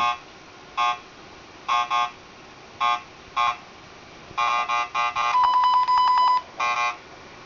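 Geiger counter beeping at irregular intervals, singly, in pairs and in quick clusters, one beep for each detected count of radiation from a rain sample. A longer steady beep lasting about a second comes a little past the middle.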